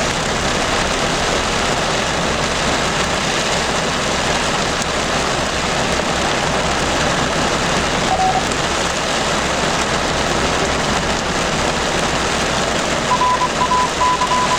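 Heavy rain falling steadily during a thunderstorm. Over it comes a short electronic beep about eight seconds in, and a run of broken, higher beeps near the end, like a radio's coded tone signal.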